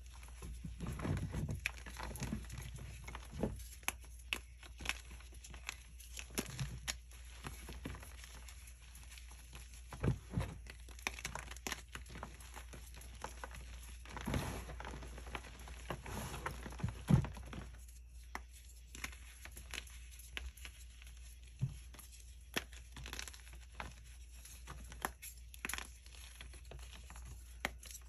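Fingers crushing and crumbling dyed gym chalk blocks into powder: dry crunches and crackles at an uneven pace, with a few louder snaps as bigger chunks break.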